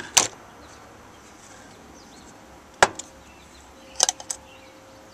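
Sharp metallic clicks from a machined-aluminium sonic screwdriver replica's spring-loaded parts snapping: one just after the start, one near three seconds, and a quick run of three about four seconds in. Birds chirp faintly in the background.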